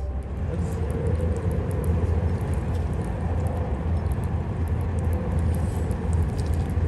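Wind buffeting the microphone in a heavy rainstorm, a loud uneven rumble, with steady rain hiss and scattered raindrop ticks.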